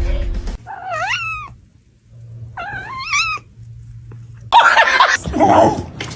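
A domestic cat meowing twice, each call gliding up and down in pitch, after a low thud at the start. A louder, harsh, rough stretch of cat noise follows near the end.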